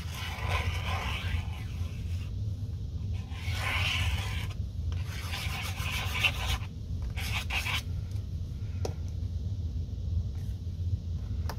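Cardstock being handled and shifted, with paper rubbing against paper and the mat in about four short bursts over the first eight seconds, then a couple of faint clicks. A steady low hum runs underneath.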